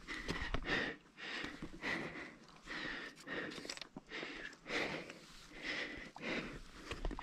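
A climber breathing hard and close to the microphone, with noisy breaths coming about once a second, and a few small sharp taps and scrapes between them.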